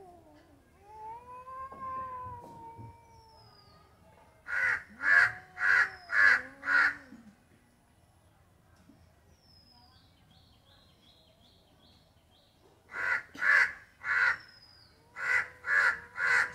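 A cat meows in long, drawn-out calls that rise and fall, and then crows caw loudly in quick runs: five caws after about four seconds and two runs of three near the end. Faint small-bird chirping comes in between.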